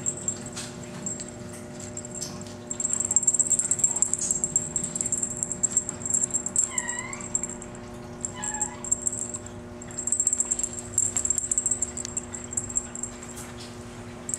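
Maine Coon kitten mewing twice, short high arched calls near the middle, amid bouts of crackly high-pitched rustling as it plays with a feather teaser wand.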